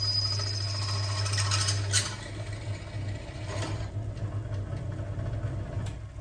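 Small electric power tool motor running while cutting or drilling an aluminium block, with a high whine over the first second and a half. A sharp click comes about two seconds in, and the motor runs on more quietly.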